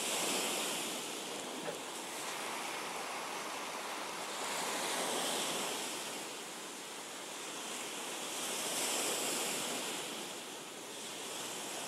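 Ocean surf: a steady rushing wash that swells and eases every four or five seconds.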